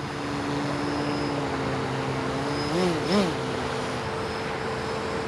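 A small motor running steadily with a hum over a hissing, windy background, with two short rising-and-falling swells in pitch about three seconds in.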